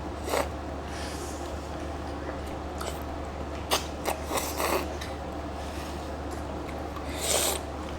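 Wet eating sounds of ripe mango being bitten and sucked off the pit: a handful of short slurps and bites over a steady low hum.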